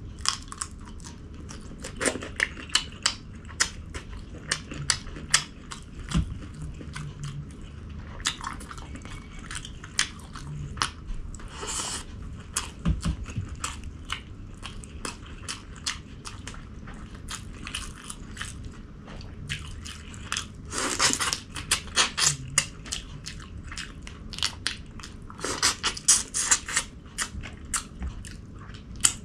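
A person chewing and biting food close to the microphone, with dense wet mouth clicks and smacks. A few louder spells of crunching or smacking last about a second each.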